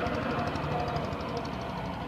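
Engine of heavy earthmoving machinery running with a rapid, even knock, a higher whine over it dying away about three quarters of the way in.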